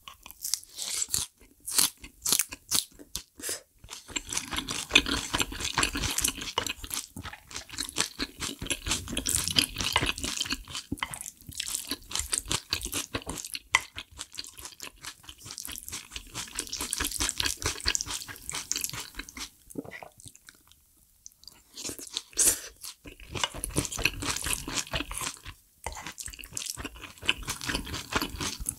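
A person eating close to the microphone: wet chewing and crunching of food in irregular runs, with a short lull about two-thirds of the way through.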